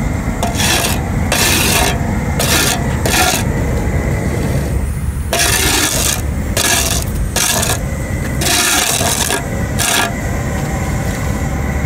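Steel shovel blade scraping over pavement, pushing loose hot-mix asphalt in to tidy the edge of a freshly laid asphalt speed bump, in a run of short, uneven scrapes over a steady low rumble.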